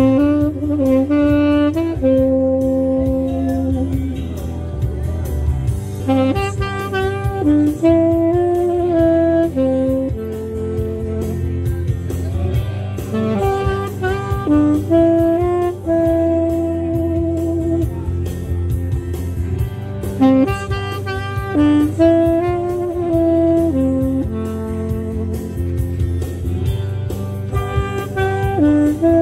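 Saxophone playing a slow melody of long held notes and short runs, over a steady low bass accompaniment.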